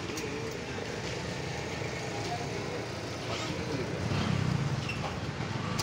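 Street traffic ambience: steady road noise with a low engine rumble that swells about four seconds in, and faint voices.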